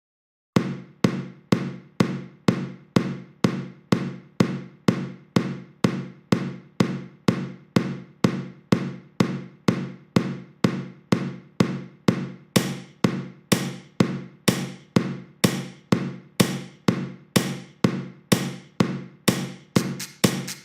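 A steady percussive beat of sharp struck sounds, about two a second, each with a short ringing low tone, built from the sounds of everyday tools. It starts about half a second in, and from around the middle the strikes turn brighter, with more high sizzle.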